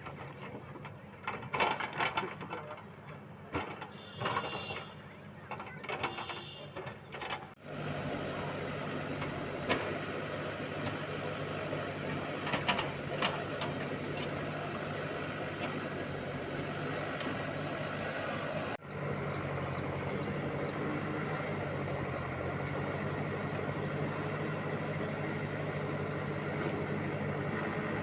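Irregular knocks and clatter for the first several seconds, then the steady running of a bulldozer's diesel engine, a low hum held without much change.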